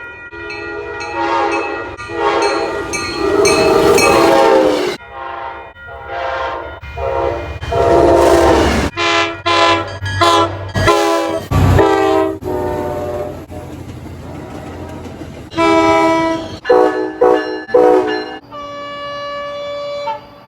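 Train air horns sounding in a string of blasts, long ones in the first few seconds and shorter ones after, with the rumble of a passing train under some of them. The sound changes abruptly several times, as one horn recording gives way to another.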